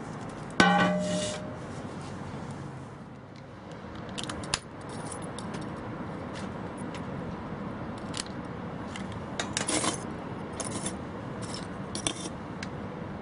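A metal barbecue bucket being handled: one ringing metallic clang near the start that fades over about a second, then scattered scrapes, clicks and rustles as it is moved and handled.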